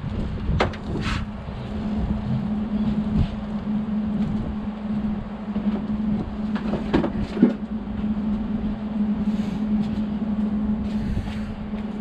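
A steady machine hum runs throughout, with a few short knocks of tools or parts being handled, about a second in and again around seven seconds in.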